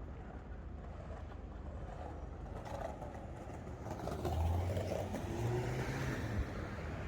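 A car engine accelerates past on a city street, its low hum rising in pitch and loudest in the second half, over steady traffic rumble.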